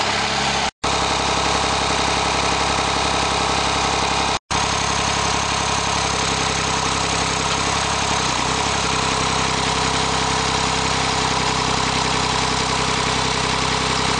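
The LifeTrac open source tractor's engine running steadily. Its sound cuts out for an instant twice, once about a second in and again at about four and a half seconds.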